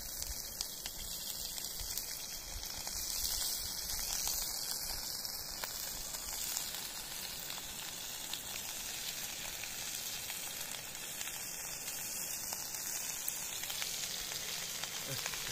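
Ćevapi sizzling in a hot stainless steel frying pan as they are laid in one by one: a steady frying hiss with small ticks and pops.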